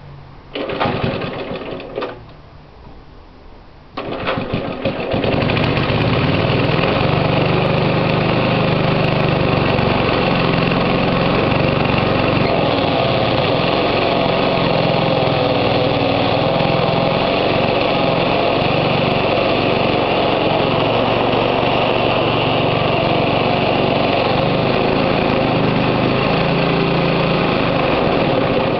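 Cold start of an old Webb cylinder lawn mower's 2 hp Briggs & Stratton engine. The first pull gives a short burst of running that dies after about a second and a half; a second pull about four seconds in catches, and the engine then runs steadily. The owner calls the engine tired, smoky and losing power.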